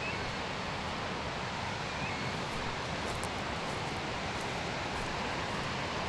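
Steady rushing of a waterfall and river down the slope, with vegetation rustling.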